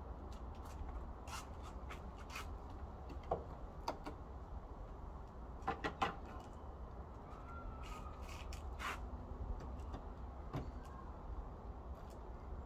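Scattered clicks, taps and knocks of hand tools being handled against a plywood box, the loudest cluster about six seconds in, over a steady low rumble.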